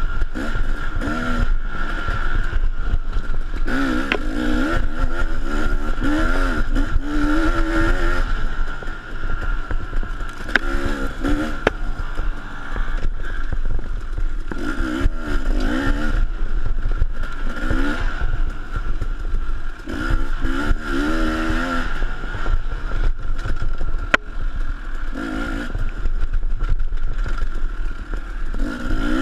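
A KTM dirt bike's engine, heard from on board, revving up and dropping back again and again as the throttle is opened and closed. The bike's chassis rattles and clatters over rough ground.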